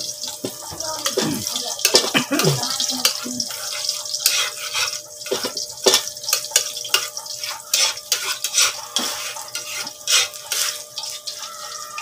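Hot oil sizzling and crackling with frequent pops in a metal wok over a wood fire while a spatula stirs chopped aromatics.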